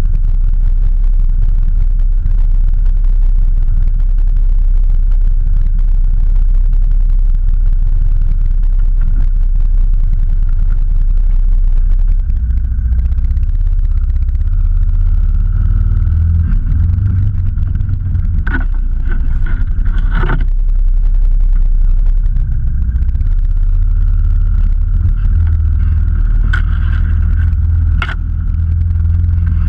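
Off-road vehicle's engine running, a heavy low rumble that grows stronger in the second half. A few sharp knocks come around two-thirds through and again near the end.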